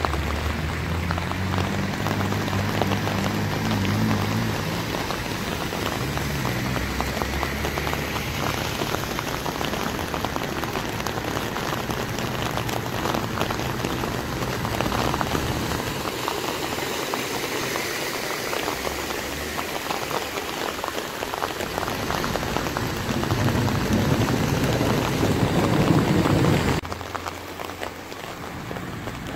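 Heavy rain pouring steadily, with cars driving through deep floodwater on the road. The sound swells for a few seconds before cutting off suddenly near the end.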